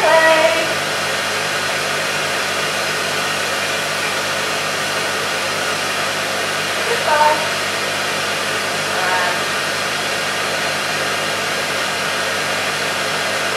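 Steady rush of blown air from laser tattoo removal equipment, the kind of sound made by a cold-air skin cooler blowing onto the arm being treated. It holds an even level throughout.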